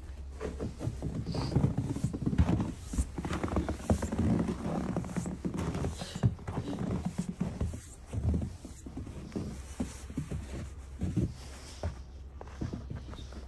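Footsteps in snow on a sailboat's fibreglass deck: irregular steps and scuffs with a few knocks, over a steady low rumble.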